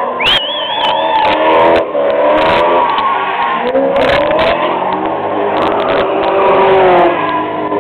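Ute engines revving hard during burnouts, their pitch climbing and falling again and again over a haze of spinning-tyre noise. A wavering high squeal lasts about a second near the start, and a few short sharp cracks come through.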